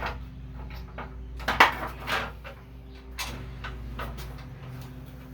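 Air filter cover on a Toro Recycler mower being set back in place and handled, giving a few knocks and clicks, the loudest about a second and a half in, over a steady low hum.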